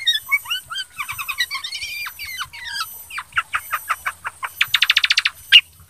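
Kutilang sutra (a bulbul) singing a varied song of quick gliding, chattering phrases. Past halfway it shifts to a series of separate ringing notes and then a fast trill, and it ends with one loud sharp call.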